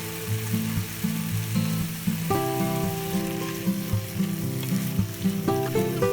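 Food sizzling and frying in a pan, a steady hiss, with being stirred, under light background music.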